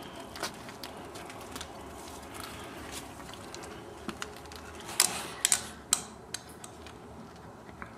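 Scattered sharp clicks and knocks over a faint steady hiss, with a cluster of louder knocks about five to six seconds in.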